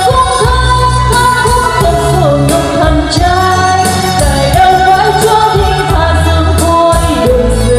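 A woman singing karaoke into a handheld microphone over a pop backing track with heavy bass, amplified through the NT 1508 electric trolley speaker system.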